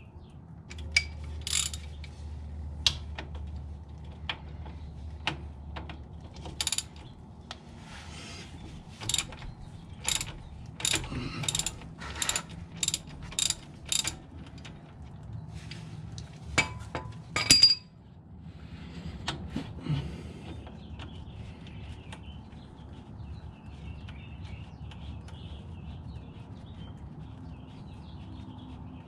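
Sharp metallic clicks and clinks from hand tools at work on the VW Beetle's transaxle drain and fill plugs. They come scattered at first, then as a run of about two a second, and stop about 18 seconds in.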